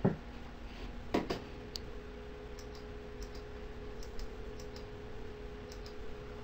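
Computer keyboard clicks: two sharp key presses about a second apart, then a few faint ticks, over a faint steady hum.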